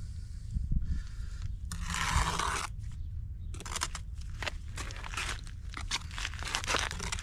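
Steel brick trowel scraping and spreading sandy mortar on top of a brick pier, with one longer scrape about two seconds in, then a run of short scrapes and taps as bricks are bedded and more mortar is picked up.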